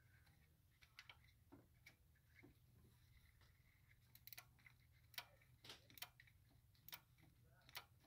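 Faint, irregular metallic clicks of a socket wrench being worked on an EGR valve bolt deep in an engine bay, with a few sharper clicks in the second half.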